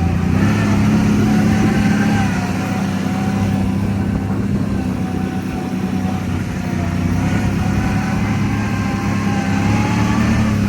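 ATV engine running at a steady pitch under way, with a thin steady whine above the engine note.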